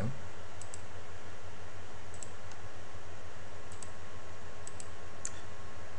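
Faint scattered clicks from working a computer, several in quick pairs, over a steady low hum.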